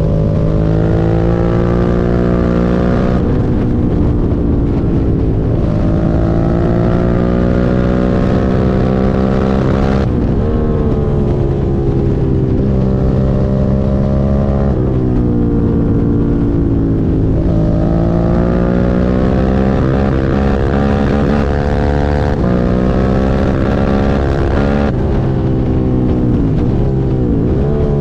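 Suzuki SV650 V-twin motorcycle engine under way, its pitch climbing for a few seconds and then dropping back again and again as it revs up and changes or eases off. The bike has a misfire.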